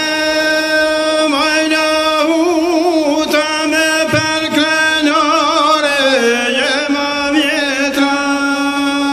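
Lahuta, the Albanian one-stringed bowed fiddle, holding one long note, then breaking into quick trills and wavering runs through the middle, dipping lower about two-thirds through, and settling back on the held note.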